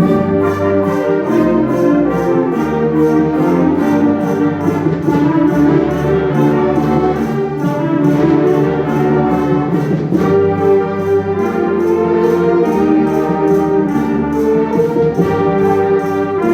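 Live concert wind band playing sustained full chords, with the brass prominent.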